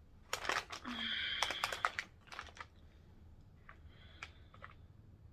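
Close-up crisp crackling and crinkling from a Subway sandwich meal being eaten, dense for about two seconds and then a few fainter clicks.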